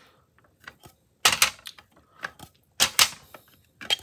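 Hard plastic PSA grading slabs clacking against each other as they are lifted off and set down on a stack, several sharp clacks at irregular intervals.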